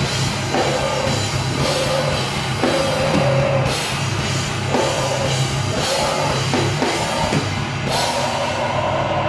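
A screamo band playing live and loud: a drum kit pounded with crashing cymbals, distorted bass and guitar, and shouted vocals.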